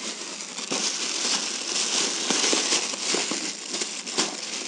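Thin black plastic packaging bag crinkling and crackling as it is handled and pulled open around a boxed tool, a dense rustle full of small crackles.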